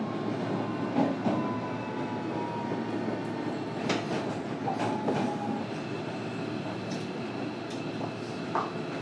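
Running sound inside a JR Kyushu 305 series electric train's motor car: a steady rumble of wheels on rail, broken a few times by the clack of rail joints, with faint whining tones from the VVVF inverter drive.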